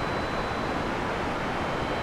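Heavy rain falling steadily in a forest, a dense even hiss with no thunder, and a faint high steady tone underneath.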